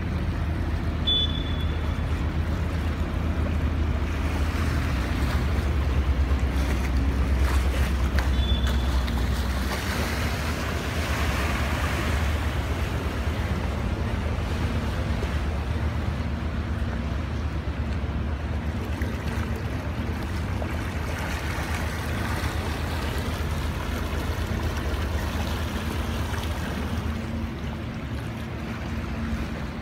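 Boat engine running with a steady low rumble under the hiss and splash of water washing past the hull. The rumble eases and the water swells about ten seconds in. Two brief high chirps come near the start.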